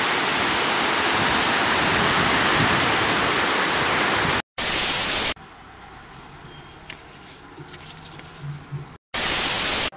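Small waves washing onto a pebble beach as a steady hiss, cut off at about four and a half seconds by a short burst of loud TV-style static. A much quieter stretch follows, then a second static burst just before the end.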